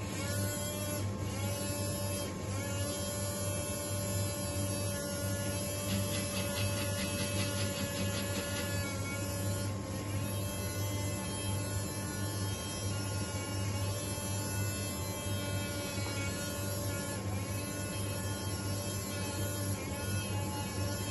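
Small electric motor and Meccano gear train of a round-the-pole helicopter model, whirring and humming steadily. The whir starts right at the beginning as the model is switched on.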